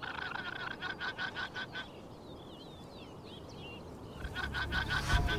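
Guanaco alarm calls: a rapid, shrill pulsed trill of about five pulses a second, once at the start and again near the end, with small birds chirping in between.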